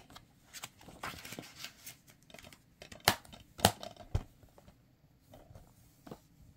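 Paper ad insert rustling, then three sharp clicks about half a second apart as a plastic DVD case is handled and set aside.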